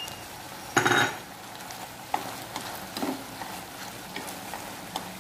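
Squid, shrimp, pork and fish balls sizzling in a frying pan while wooden chopsticks stir them, with light scrapes and taps against the pan and one louder burst about a second in.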